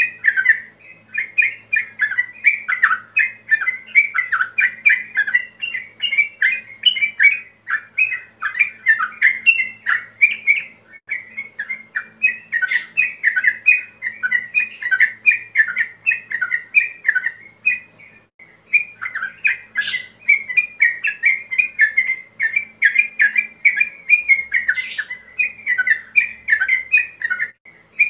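Male yellow-vented bulbul singing a fast, unbroken run of short chirping notes, with a brief pause about two-thirds of the way through. This is the rapid continuous 'ropel' song of a male in breeding condition calling out rivals.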